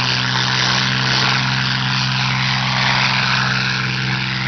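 Propeller aircraft's piston engine running at power with a steady note as the plane travels along the runway.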